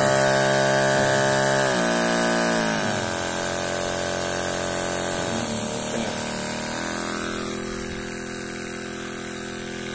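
Battery-powered pump of an electric knapsack sprayer running with a steady whine, its pitch dropping in steps several times as the speed potentiometer is turned down, over the hiss of spray from the lance nozzle.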